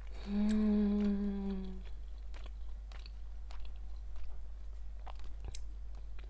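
A woman hums with her mouth closed, holding one flat pitch for about a second and a half while eating. Quiet chewing follows, with small scattered mouth clicks.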